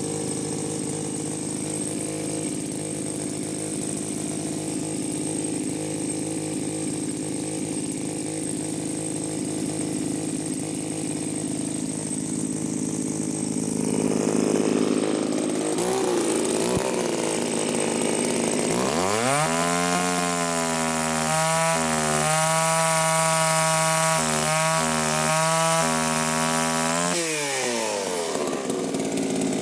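Two-stroke chainsaw idling steadily, then revved hard about halfway through and run at high revs through a wooden scaffold plank for about eight seconds. The pitch dips briefly as the chain bites, then it drops back to idle near the end once the cut is through.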